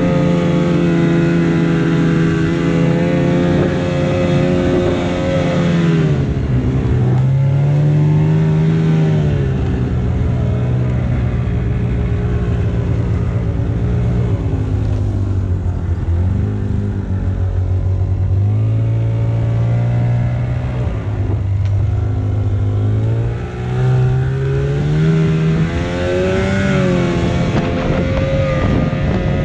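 Arctic Cat Bearcat 570 XTE snowmobile's two-stroke engine running under way, its pitch shifting with the throttle. It is steady and high at first, drops about six seconds in, stays lower through the middle, and climbs again near the end.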